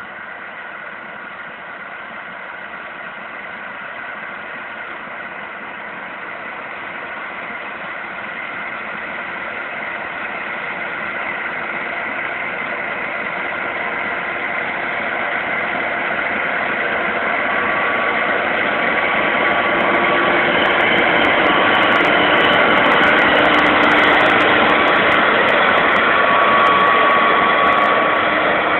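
John Deere 9965 cotton picker's diesel engine and picking units running under harvesting load, a steady mechanical hum with a few steady whining tones on top. It grows steadily louder as the machine draws close, easing slightly near the end as it passes.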